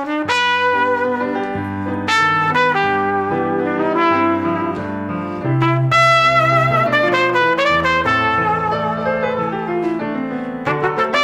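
Instrumental duet playing a salsa piece cut down from a full band arrangement: a held melody line with vibrato over a moving lower accompaniment.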